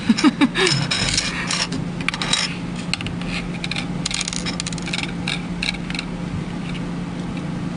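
Irregular small clicks and scrapes of hard plastic and metal parts being handled as a Medifusion 3000 syringe pump is worked on, over a steady low hum.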